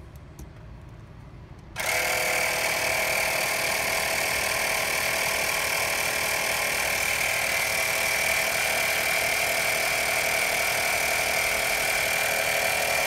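Portable electric air compressor (tire inflator) switching on abruptly about two seconds in and running steadily with a constant whine, pumping air through a hose on the valve stem into a freshly plugged tire.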